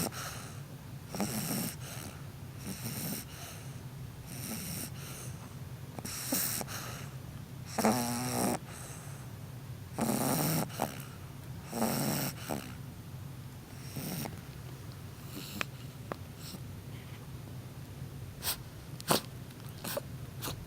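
Bulldog snoring in slow, even rhythm, one snore about every one and a half to two seconds. The snores stop about fourteen seconds in, and a few short sharp clicks follow.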